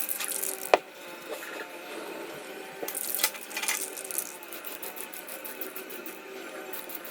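Aerosol spray can of metallic gold paint hissing in short bursts as a light coat goes on, with one sharp click about a second in.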